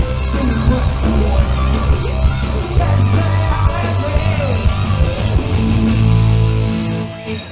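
Live punk rock band playing loud through the PA: distorted electric guitar, bass and drums, with shouted vocals. The song ends near the end, the last chord dying away.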